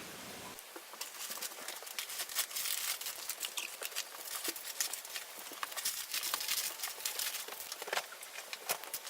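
Crinkling and rustling of plastic packaging, many quick irregular crackles and clicks, typical of snack wrappers being handled.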